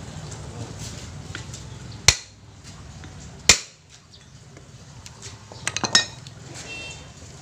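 Sharp metallic knocks and clinks on the steel shell of a car's brake booster as it is put back together. Two single strikes come about a second and a half apart, then a quick run of four or five clinks near the end, one of which rings briefly.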